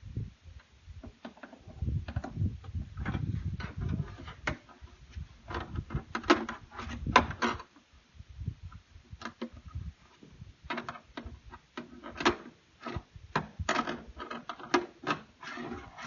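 Irregular knocks, clicks and scrapes of a plastic paint bucket being handled while the deer corn feeder's fittings are tightened inside it. Duller thumps come about two to four seconds in and again about seven seconds in.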